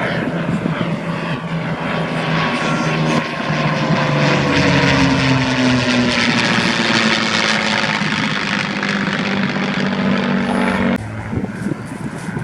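Propeller aircraft flying past; its engine note swells, then falls in pitch as it passes. The sound cuts off abruptly near the end.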